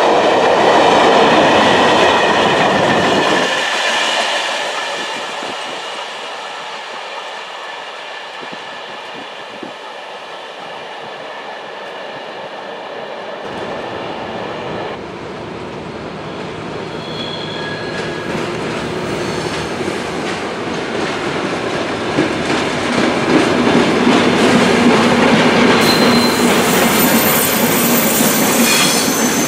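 A train runs past at speed with a loud rush and clatter of wheels, then fades into the distance. Later a pair of diesel locomotives hauling freight wagons comes in, with a steady diesel engine drone, wheels clicking over rail joints and brief high wheel squeals near the end.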